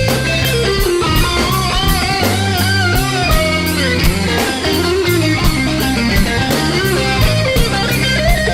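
Band music with no vocals: a lead electric guitar plays bending notes over a bass line and a steady drum beat.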